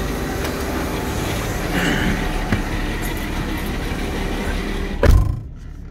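Steady rushing noise is cut off about five seconds in by a car door shutting with a heavy thud. After that the sound is much quieter and muffled.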